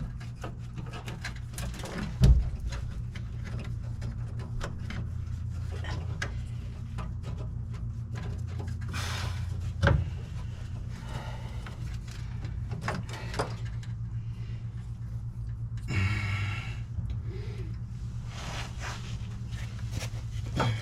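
Hand work on a truck's bumper and wiring: scattered clicks, rattles and a few sharp knocks, the loudest about two seconds in and again near ten seconds, over a steady low hum.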